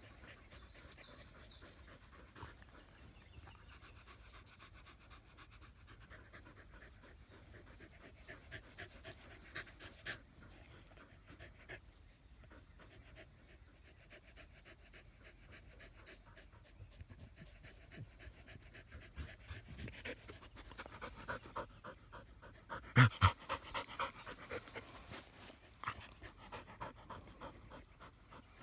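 Australian Shepherd panting rapidly with its mouth open, growing louder and closer in the later part. Two sharp knocks stand out about three quarters of the way through.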